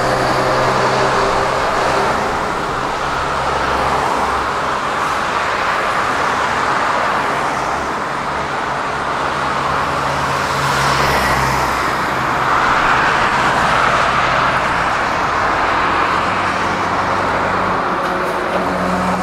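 Road traffic on a multi-lane city street: cars passing close by in a steady stream over a low engine hum, swelling louder as vehicles go by about twelve to fourteen seconds in.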